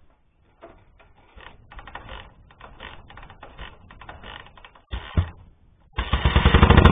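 Ural M-61 flat-twin motorcycle engine being kick-started: the kickstarter and engine clatter as it is kicked through, one loud pop about five seconds in, then the engine fires in a loud, rapid run of beats near the end.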